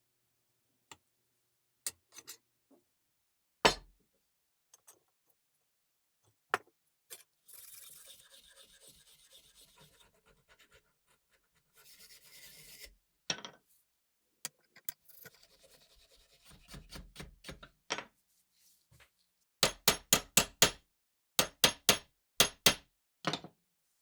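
Hand work on the rusty metal of an antique sickle and hay hook: scattered knocks and clinks, two stretches of scraping, and in the last few seconds a quick run of sharp taps, several a second.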